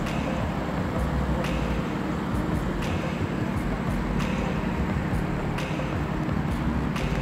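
BMW M4's twin-turbo straight-six idling with a steady low rumble, and a faint click about every second and a half.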